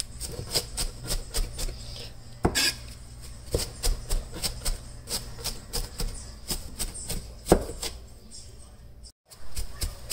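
Chinese cleaver chopping napa cabbage on a plastic cutting board: quick, even knocks of the blade through the leaves onto the board, about three to four a second.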